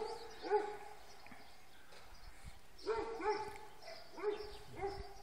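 A dog giving short, high yips that rise and fall in pitch, about six of them with gaps between.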